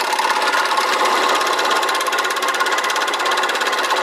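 Electric scroll saw running with a fast, even buzz from its reciprocating blade, cutting through a thin wooden strip at a 45-degree bevel.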